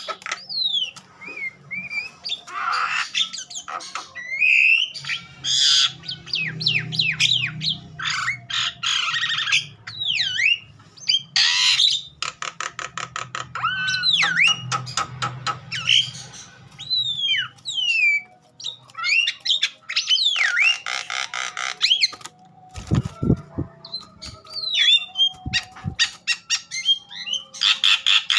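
Javan myna in full agitated song: a fast, varied run of whistled glides, harsh squawks and rapid clicking rattles. There are a couple of short low thuds near the end.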